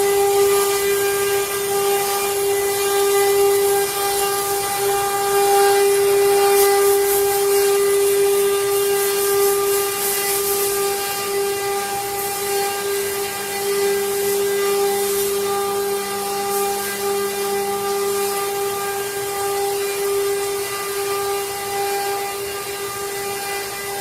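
CNC router spindle running at a steady high whine while carving wood, with the hiss of the bit cutting on top; the cutting noise grows rougher for a few seconds in the middle.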